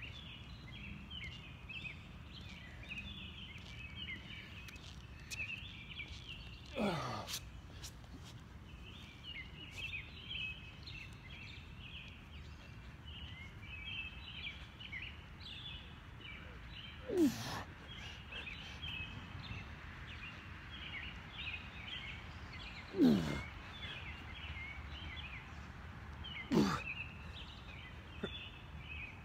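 A dense chorus of chirping night insects, with four short grunting exhales that fall in pitch, from a man doing push-ups.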